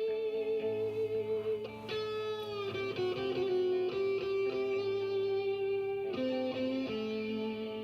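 Music: a lead electric guitar plays long held notes with vibrato, gliding down to a lower note about two and a half seconds in and changing notes again near the end.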